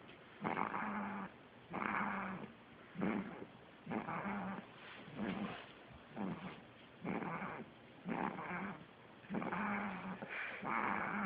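Sleeping baby snoring: a rough breath about once a second, each with a low buzzing tone under a raspy hiss, sounding like a lion.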